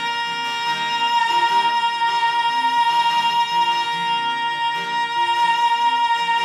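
Live acoustic country music: guitar playing under one long, steady high note, in the drawn-out closing phrase of the song.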